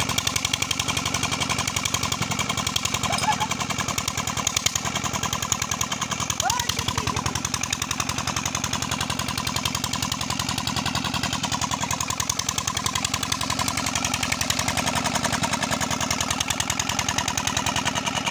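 Old Petter ('Peter') diesel engine running steadily with a rapid, even chugging beat, freshly started.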